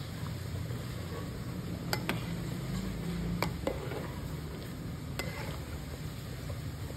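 Rice boiling in a steel pot of water, bubbling steadily, while a slotted steel spatula stirs it and clinks sharply against the pot about five times near the middle.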